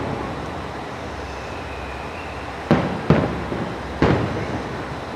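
Fireworks shells bursting: three booms, the first near the middle, a second just after it, and a third about four seconds in, each with a short echoing tail, over a steady low rumble.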